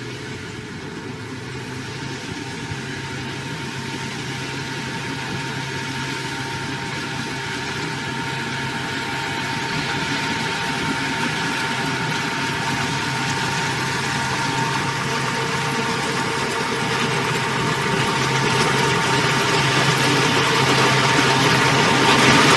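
Heavy construction machine's diesel engine running steadily, growing gradually louder.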